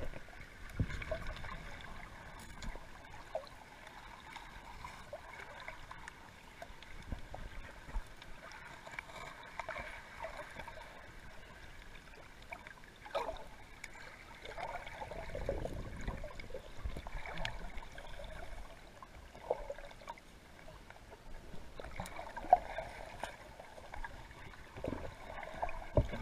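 Muffled water sound picked up by a camera held underwater: irregular gurgling and bubbling, with a few small clicks and knocks.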